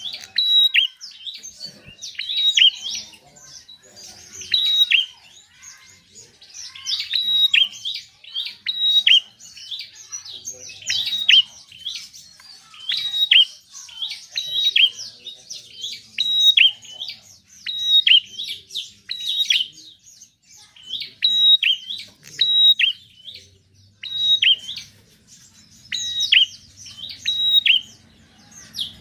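Prinia (prenjak) singing: short, loud, chattering phrases of sharp high notes, repeated about every one to two seconds without let-up.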